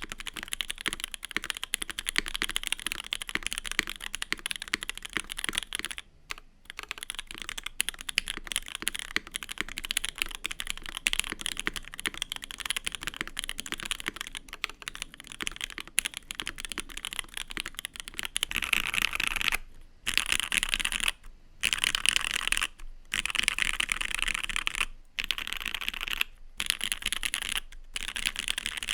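Typing on a gasket-mounted mechanical keyboard with lubed and filmed C3 Tangerine V2 switches under GMK doubleshot ABS keycaps: a steady run of keystroke clacks. About two thirds of the way in it turns to keyboard mashing, short clusters of many keys struck at once with brief pauses between, first on CRP Tulip keycaps, then on GMK again.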